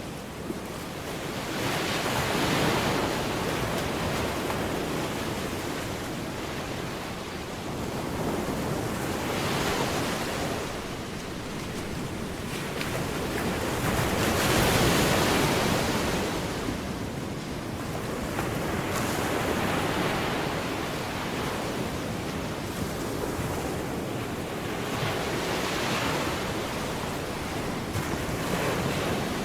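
Ocean surf: waves breaking and washing up the shore, swelling and fading about every five to six seconds.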